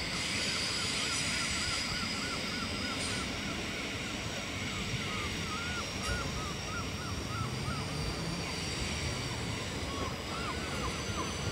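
NS Sprinter electric multiple unit approaching at low speed, a steady rumble and hum as it draws in toward the platform. A high chirping repeats about three times a second through the first half and again near the end.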